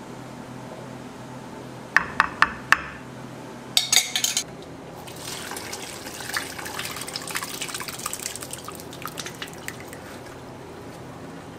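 Four quick, sharp knocks and a short clatter, as of a utensil against a pot. Then several seconds of wet crackling and dripping from the liquid caramel mixture.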